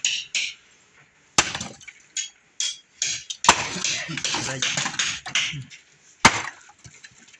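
An axe chopping firewood: three sharp blows into a log, roughly two seconds apart.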